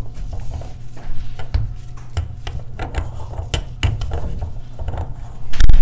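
Gloved hands threading a black plastic nut onto a banjo bulkhead drain fitting: scattered small plastic clicks and rubbing of glove on the threads, with one loud thump just before the end.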